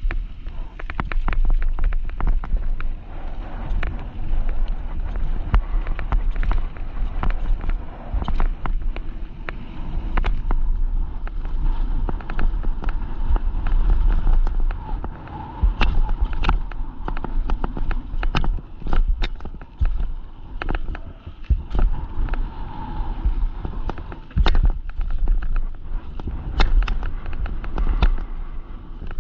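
Mountain bike descending a bike-park trail at speed: the tyres running over rough ground, with many sharp knocks and rattles from the bike over bumps, and wind buffeting the microphone as a steady low rumble.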